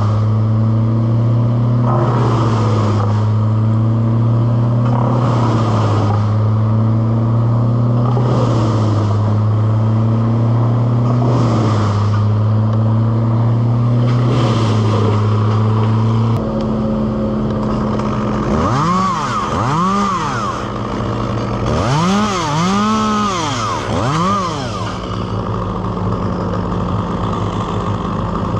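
A steady engine drone that swells about every three seconds and drops off about sixteen seconds in. Then a chainsaw is revved up and down in several quick throttle blips.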